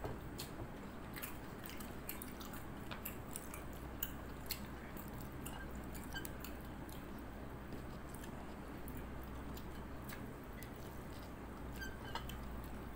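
A person chewing food close to the microphone, with small irregular mouth clicks and smacks, over a faint steady low hum.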